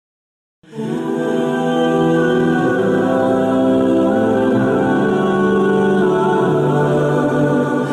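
Vocal music starting abruptly about half a second in after dead silence: sustained, layered voices holding long notes.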